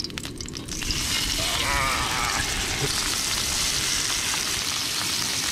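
Raw fish fillets sizzling in a hot non-stick frying pan. The sizzle swells within the first second as the pieces go in, then holds steady.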